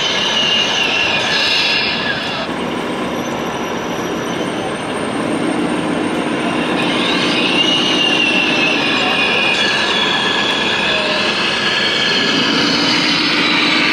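Electric drive motors and gears of radio-controlled model trucks whining as they drive, the pitch sliding slowly up and down with their speed, over the steady din of a busy exhibition hall.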